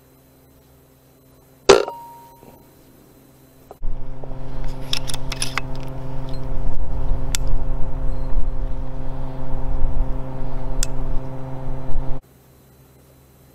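A single shot from a moderated Brocock BRK Ghost bullpup PCP air rifle about two seconds in: one sharp crack with a short ring after it. From about four seconds in until shortly before the end there is a steady low hum with scattered clicks and handling noise, which cuts off suddenly.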